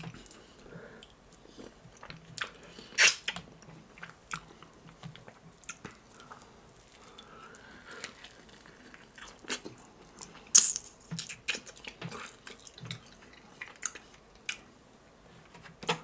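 A person chewing and biting into fried chicken: irregular crunches and wet mouth clicks. The loudest comes about three seconds in, and a burst of them about ten and a half seconds in.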